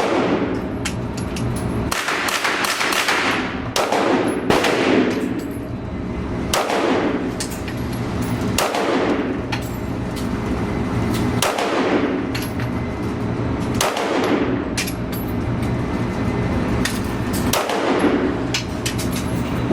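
Gunshots on a shooting range: about eight shots spaced roughly two to three seconds apart, each with a sharp crack that rings out in a long echo. A steady low hum sits underneath.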